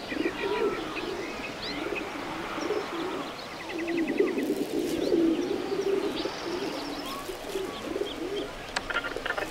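Pigeons cooing continuously in overlapping wavering calls, with small birds chirping above them and a short rapid trill about four and a half seconds in.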